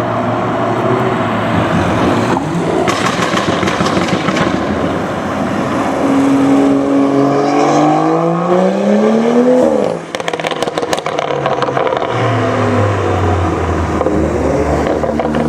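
BMW M235i's turbocharged inline-six, breathing through a catless iPE exhaust, accelerating with its pitch climbing for a few seconds, then lifting off about ten seconds in with a quick run of exhaust pops and crackles before settling to a lower steady tone. A shorter spell of crackling comes about three seconds in.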